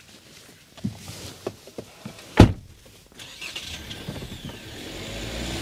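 A few light knocks, then a car door slams shut with a loud thud about halfway through. A low rumble from the Kia Soul's 1.6 CRDi diesel engine follows and grows steadily louder.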